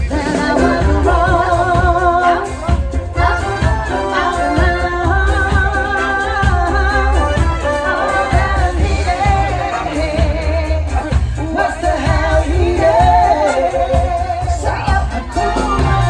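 Street band playing upbeat dance music, a lead voice singing a wavering melody over a heavy, pulsing bass beat.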